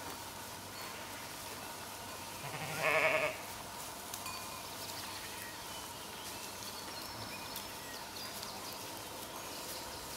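A sheep bleats once, a wavering call a little under a second long about three seconds in, over a steady faint background hiss.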